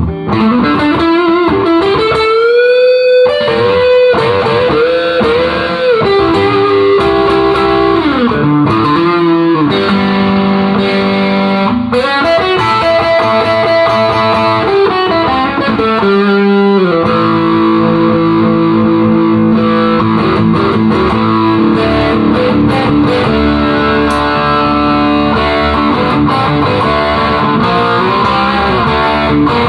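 Electric guitar played through a Peavey Bandit 112 combo amplifier and its Scorpion speaker: a lead line of held notes with string bends and vibrato.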